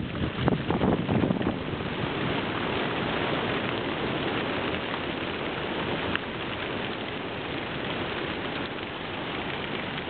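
Hundreds of racing pigeons taking off together from a transport truck's crates at a race release: a dense, even rush of flapping wings. It is louder and more uneven in the first second or so.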